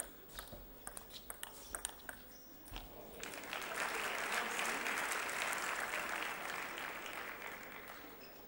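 Table tennis rally: the ball clicks in a quick, uneven series off bats and table for about three seconds. Then the crowd applauds the point, swelling and fading away near the end.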